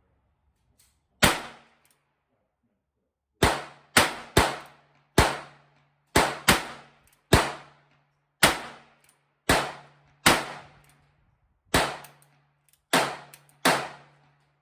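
Handgun firing about fourteen shots at an uneven pace, each a sharp crack with a short ring after it, with a brief flurry of three quick shots about four seconds in.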